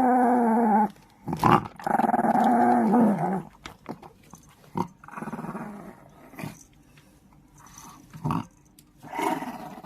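Chihuahua snoring: drawn-out, pitched, growl-like snores about a second long with pauses between breaths, loudest in the first three seconds and again near the end.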